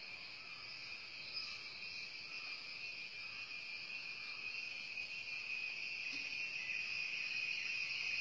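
Steady high-pitched insect chorus of crickets, a continuous shrill drone that grows slowly louder.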